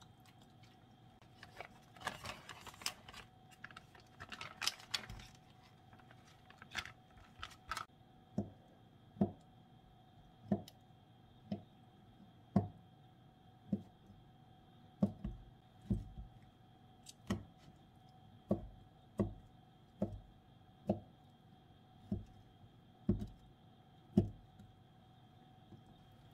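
Chef's knife chopping cooked chicken breast on a plastic cutting board: single dull knocks about once a second, around sixteen in all, after a few seconds of light clattering and rustling at the start.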